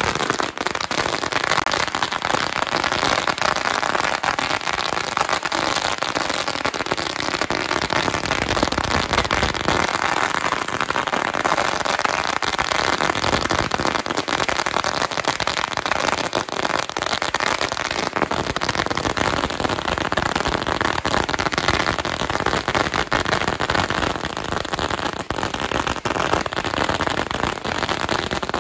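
A long string of Tết firecrackers going off in a dense, rapid, unbroken crackle of bangs.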